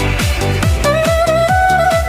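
Electronic dance music with a steady kick-drum beat and a melody line that steps and glides in pitch.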